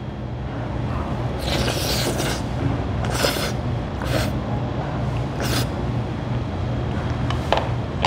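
A person slurping jajangmyeon noodles in black bean sauce, in several short slurps, over a steady low hum.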